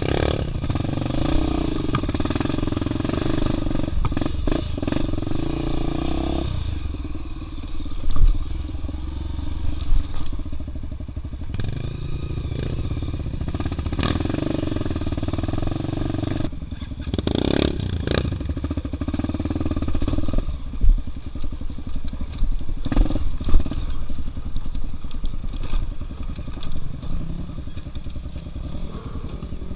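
Single-cylinder four-stroke engine of a Honda Tornado dirt bike bored out to 293 cc, revving in surges under load on a steep climb: hard for the first several seconds, falling off, then coming back in bursts. Sharp knocks and clatter from the bike over rough ground are scattered through.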